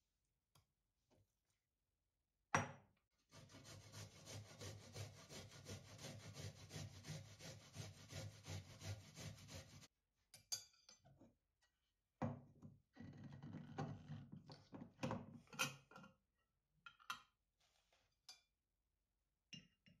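Quiet kitchen work sounds: after one knock, a knife runs through raw chicken breast on a plastic cutting board in quick, steady strokes for several seconds and stops abruptly. Later come further scraping strokes and a few clinks of a spoon against a glass bowl.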